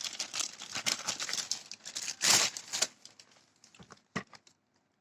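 Plastic packaging being crinkled and torn open by hand, unwrapping a parcel, with the loudest rip about two seconds in. The rustling dies away after about three seconds, leaving a few light clicks and taps.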